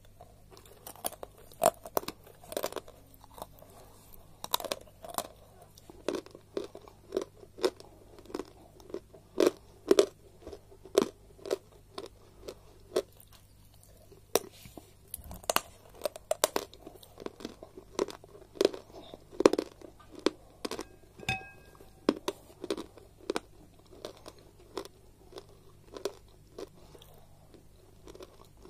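Crisp crunching bites and chewing of a piece of white chalk spread with Turkestan clay paste, close to the mouth, with sharp irregular crunches about once or twice a second.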